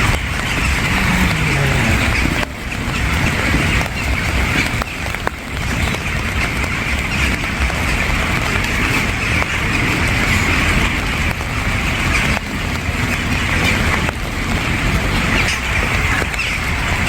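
Steady rain falling, with a dense chatter of birds calling through it. A short low tone falls in pitch about a second in.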